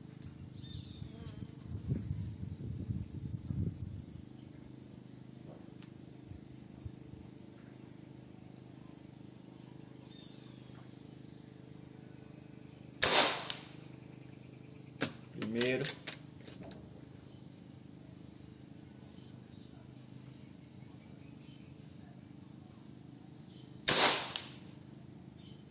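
Two shots from a PCP T-Rex 5.5 mm pre-charged pneumatic air rifle firing 20-grain (1.30 g) slugs: each a single sharp report, the first about halfway through and the second near the end, about eleven seconds apart.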